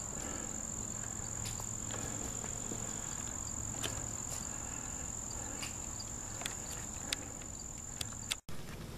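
Insects trilling in one steady, even high-pitched tone, which cuts off abruptly near the end. A few faint clicks are scattered through it.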